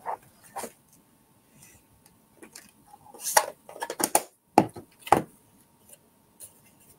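Sharp taps and clicks of plastic crafting supplies being handled and set down on a desk: a clear acrylic stamp block and a plastic ink pad case. A cluster of them comes between about three and five seconds in.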